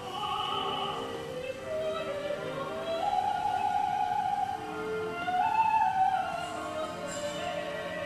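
Classical operatic music: a voice sings long held notes that rise and fall, over orchestral accompaniment.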